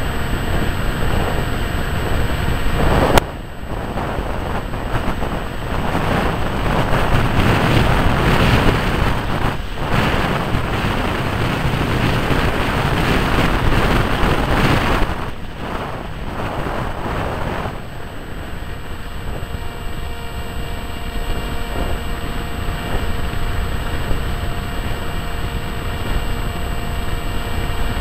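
Wind rushing over the microphone of a small camera riding on a HawkSky RC model plane in flight, with the faint steady whine of its electric motor and propeller underneath. The rush drops suddenly about three seconds in, swells again, then eases about halfway through.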